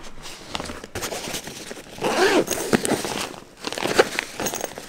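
Nylon fabric of a Millet Ubic 40 hiking backpack rustling and crinkling as hands handle it, with scattered small clicks and a louder scraping sweep about two seconds in.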